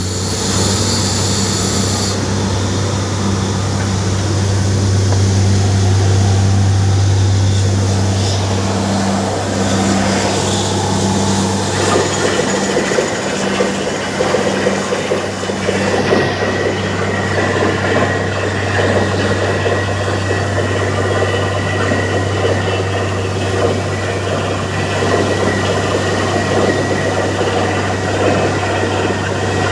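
Borewell drilling rig running: a steady engine drone, joined partway through by a dense, rough rattle that carries on to the end.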